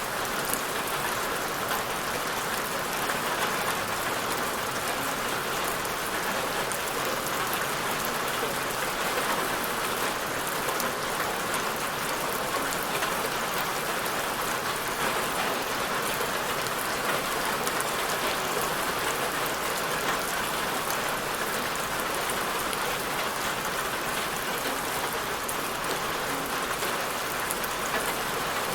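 Steady rain falling, an even hiss of many drops on a surface with faint patter in the highs.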